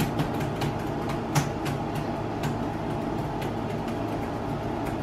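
Irregular clicks of typing on an HP laptop keyboard, coming thick in the first two seconds or so and sparser after, over a steady low hum.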